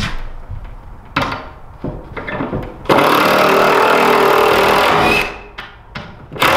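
Cordless drill driving a screw through a wooden beam into the ceiling framing. It runs steadily for about two seconds, starting about three seconds in, and starts again right at the end. A few short knocks come before the first run.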